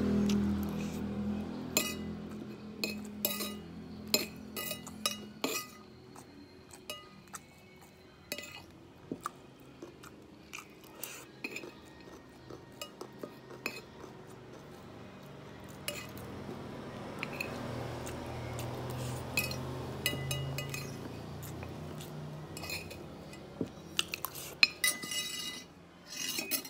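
A metal spoon clinking and scraping on a glazed ceramic plate as rice is scooped up, in many short separate clicks, with a quick run of scrapes near the end.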